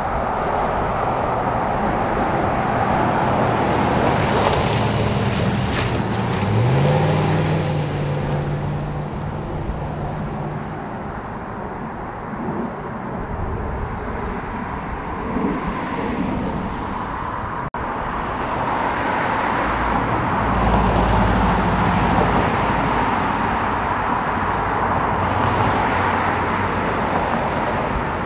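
Road traffic with police SUVs driving past. About six and a half seconds in, one engine's note rises as it accelerates, then holds steady for a few seconds.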